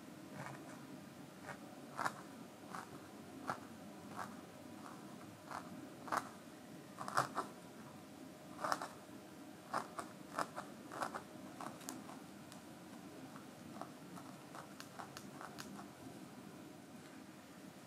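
Barbed felting needle stabbing into wool felt: a run of short, sharp pokes at an uneven pace of about one or two a second, most frequent and loudest in the middle and thinning out toward the end.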